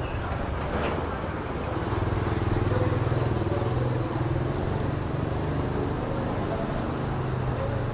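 A motor vehicle's engine running with a steady low hum, growing a little louder about two seconds in and then holding.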